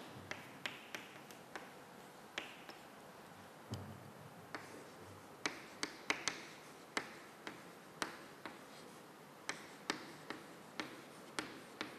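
Chalk tapping on a blackboard during writing: a string of faint, sharp clicks at irregular spacing, about one or two a second.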